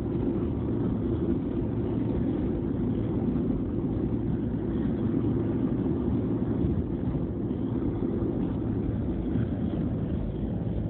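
Steady engine and road noise heard inside a moving car's cabin.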